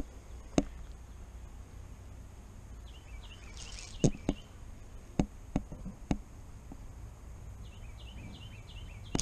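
A few sharp clicks and knocks, about half a second to a second apart in the middle stretch, over a steady low outdoor background. Three times a short run of quick, high, falling chirps is heard. A sudden loud burst comes at the very end.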